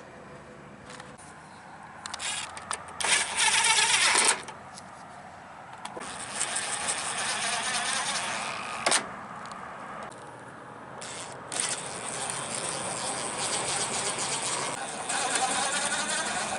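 Power drill running in bursts: a brief loud run about three seconds in, then two longer runs of several seconds each, driving screws up into the truck's side fairing.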